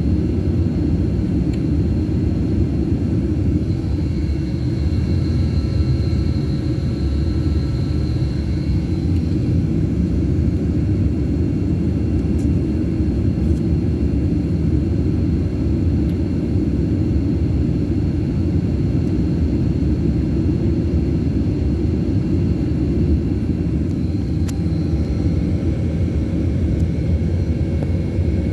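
Steady low rumble of a jet airliner's engines and airframe heard inside the passenger cabin while the plane is on the ground, with a faint steady high whine above it.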